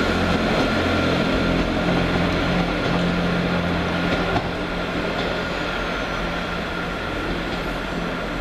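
Class 158 diesel multiple unit pulling away, its underfloor diesel engines droning steadily with a thin steady whine above, easing a little about halfway as it draws off.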